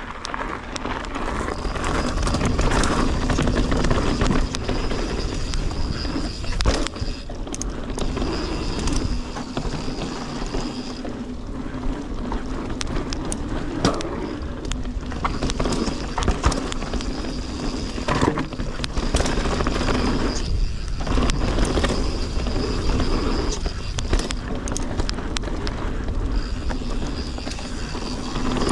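Mountain bike being ridden over gravel and dirt trail: tyres rumbling and crunching, with the bike rattling and clicking over bumps and wind buffeting the microphone. A thin high whine comes and goes.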